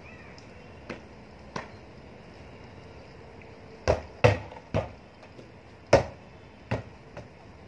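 A volleyball being played underarm against a house wall: sharp slaps of the ball off the forearms and the wall. Two faint ones come first, then a quick run of louder ones from about four seconds in.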